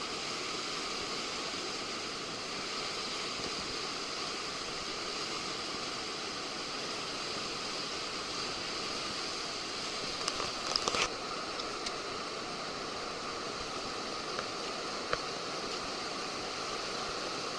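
River water rushing steadily, with a few brief knocks or splashes about ten to eleven seconds in.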